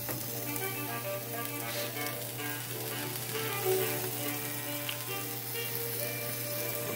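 Strips of beef and sliced peppers sizzling in a frying pan over a gas burner, with background music playing over it.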